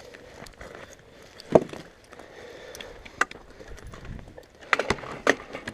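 A few scattered sharp clicks and knocks over faint background noise, the loudest about a second and a half in, then a quick run of several near the end.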